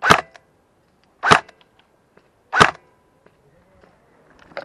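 Three single airsoft rifle shots fired one at a time, about a second and a quarter apart.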